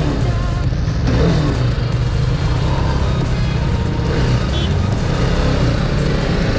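Motorcycle engine running at low speed as the bike rolls off, under background music.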